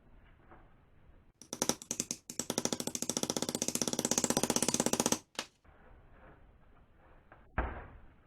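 Rapid, even ratcheting clicks for about four seconds, beginning with a few separate clicks, from a tool being worked during the sander's reassembly. A single thud follows near the end.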